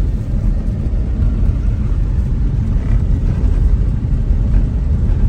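Steady low rumble of a moving car, heard from inside the cabin: engine and road noise while driving.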